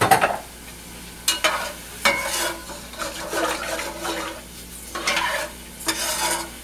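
Long metal spoon stirring raw long-grain rice and water in an aluminum pot, swishing and scraping in irregular strokes as the salt is mixed in before cooking.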